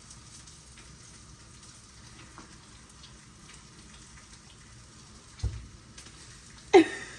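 Steady sizzle of bacon and sausages frying in a pan. A dull thump comes about five and a half seconds in, and a brief voice sound near the end.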